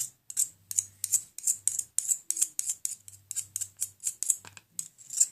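Homemade glue-stick slime being stirred: quick sticky, crackly squelches, about four a second, as the boric-acid water is mixed in.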